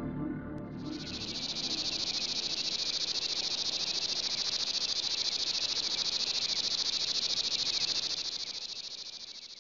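Insects trilling in a steady, high-pitched chorus with a fast pulse, starting abruptly about a second in and fading out near the end.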